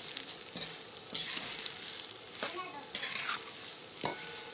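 Broken vermicelli toasting in oil in a pan while being stirred with a plastic spatula: a light sizzle under the irregular scratchy rustle and scrape of the dry strands being turned over.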